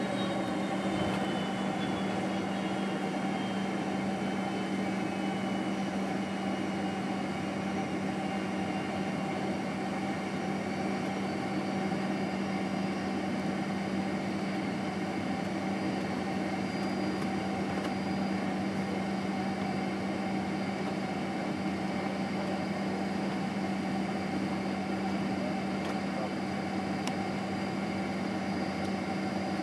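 Boeing 767-300ER cabin noise while taxiing, the jet engines at low thrust: a steady hum with a strong low drone and a high whine that slides down in pitch over the first few seconds.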